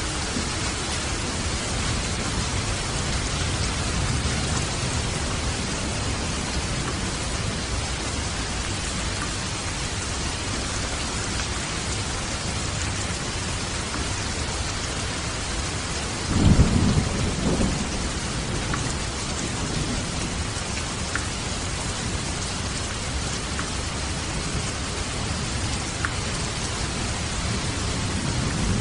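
Steady hiss of rain and rushing water, with a short low rumble of thunder a little past halfway.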